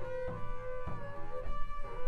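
Small-group jazz: a double bass played with the bow holds a long, steady note, with a drum kit adding a few light, irregular strikes behind it.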